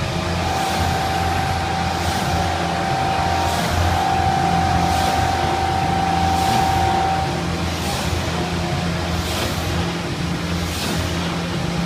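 Steady machine hum from the running motors of a C-frame eccentric press line, with a higher whine that fades out about seven to eight seconds in and a faint hiss recurring about every second and a half.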